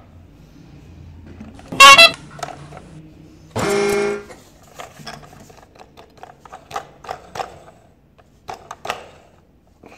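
Electronic horn sound effect from a battery-powered clear-bodied gear toy train: a loud short blast about two seconds in, then a steady horn tone for about half a second. Light plastic clicks and taps follow as the toy is handled.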